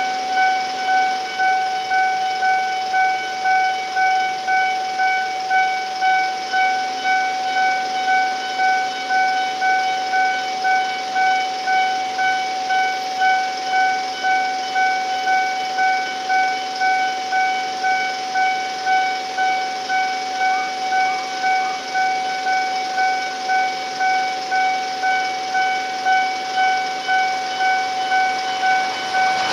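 Japanese railway level-crossing warning alarm ringing a shrill, high-pitched electronic ding over and over in a steady fast rhythm, warning of an approaching train.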